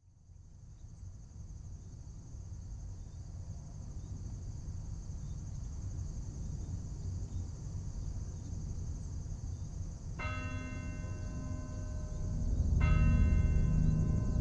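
A bell tolling slowly, struck twice about two and a half seconds apart, each stroke ringing on. Under it, a low rumble fades in from silence and grows louder, with a steady high hiss above.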